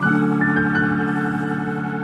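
Background music: a held, organ-like chord of sustained notes.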